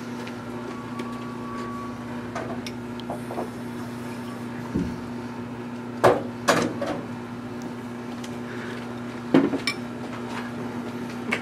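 Metal spoon clinking and scraping against a bowl while someone eats, with a few sharp clinks about six seconds in and again near the end. A steady low hum runs underneath.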